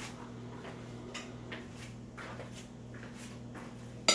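Steady low hum with faint soft rustles, then a metal fork set down on a plate with a sharp clink at the very end.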